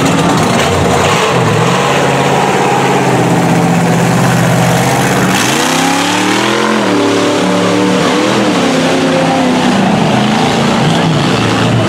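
Lifted Chevrolet Avalanche mud truck's engine running under load as it churns through a mud pit, revving hard about halfway through and again briefly a little later.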